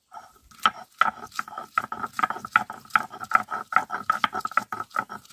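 Hand grinding on a flat stone slab with a grinding stone (sil-nora), rasping back and forth to make spice paste. After a few scattered strokes it settles about a second in into a fast, even rhythm of roughly five strokes a second.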